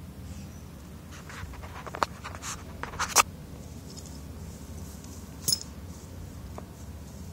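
Scratchy rustling through grass with a few sharp clicks and taps: a cluster about two to three seconds in, the loudest just after three seconds, and one more about five and a half seconds in, over a low steady rumble.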